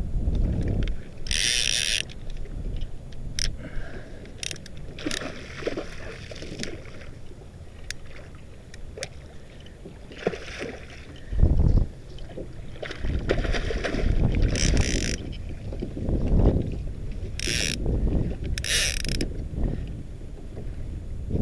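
Sea water splashing and lapping around a kayak in several short bursts every few seconds, over a steady low rumble of wind on the microphone. There is a louder low bump about halfway through.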